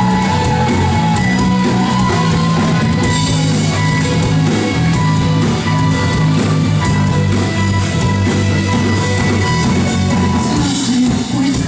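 Rock band playing loud, with distorted electric guitar chords over a drum kit and a held lead-guitar line above them.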